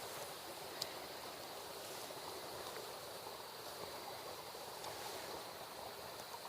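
Steady hiss of rain falling outdoors, with a faint steady high-pitched drone running through it and a single sharp click about a second in.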